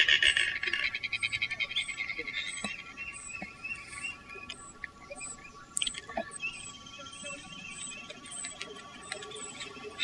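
Anhinga giving its rapid clicking, rattling call, which fades away over the first two to three seconds. After that only faint scattered clicks and faint high chirps remain.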